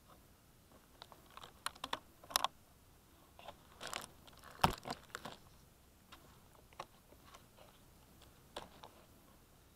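Scattered clicks, taps and light rustles of a foam RC glider being handled by hand right at its onboard camera, including around its folding propeller. The clicks come irregularly, with one sharper knock about halfway through.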